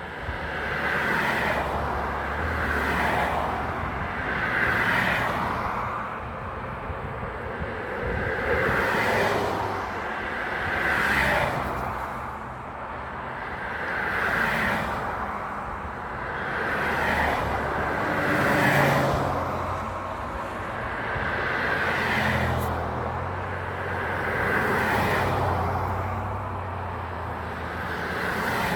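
Road traffic: vehicles passing one after another, each rising and fading in turn, about one every two to three seconds.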